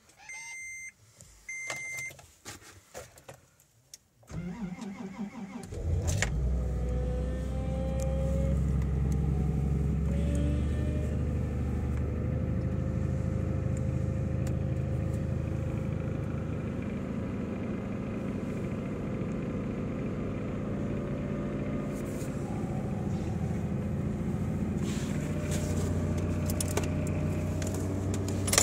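A few short electronic beeps from the dash. Then, about four seconds in, the Toyota FJ Cruiser's 4.0 L V6 cranks briefly on the starter, catches, and settles into a steady idle, heard from inside the cabin. This is a cold start at −30 °C with no block heater plugged in.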